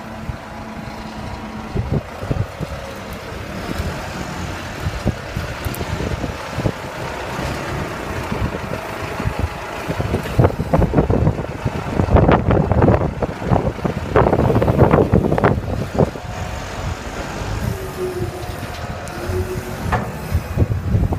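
Tractor diesel engine running while its rear hydraulic tipping bucket tilts and dumps a load of soil. From about ten seconds in there is louder rattling and rushing as the soil and stones slide out, easing off after about six seconds.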